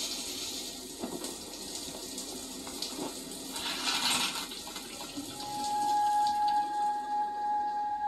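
Shower spray hissing from a showerhead, heard through a TV's speaker, with a brief louder rush about four seconds in. From about five seconds in a steady held musical note sounds over the water.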